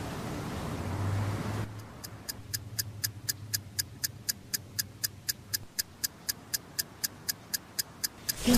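Clock ticking quickly and evenly, about four ticks a second. The ticks start about two seconds in, when a soft hiss cuts off.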